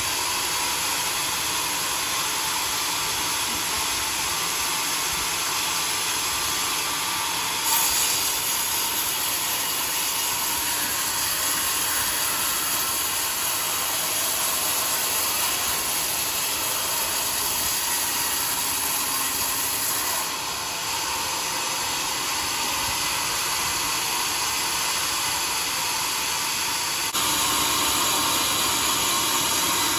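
Homemade sawmill cutting through a log: a steady, loud, hissing saw noise that changes level a few times and grows louder near the end.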